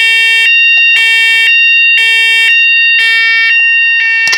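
Fire alarm sounder being tested on its second tone setting: a loud electronic alarm tone that alternates between two sounds every half second.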